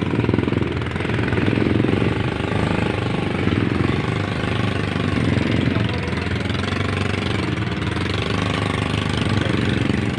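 Small motorcycle engine running steadily, with a rapid low chugging pulse.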